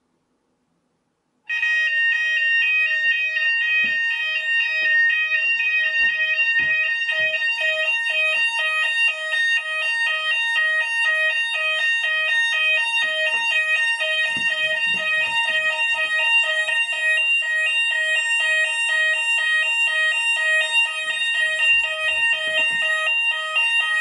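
Fire alarm sounders of a Hochiki ESP addressable system going into alarm after a Hochiki detector is set off in a test. A loud, fast warbling alarm tone starts suddenly about a second and a half in and runs on steadily. A few low knocks sound underneath it.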